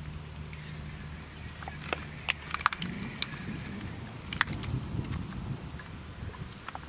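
Scattered sharp clicks and light metallic rattles from a spinning rod and reel being handled. A low steady hum fades about three seconds in, giving way to a low rumble.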